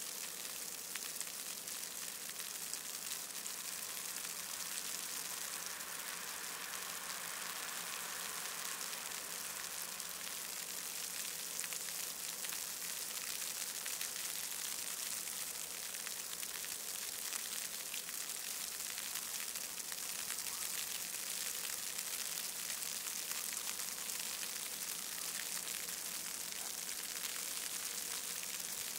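Steady, even high hiss with no distinct events, over a faint low hum.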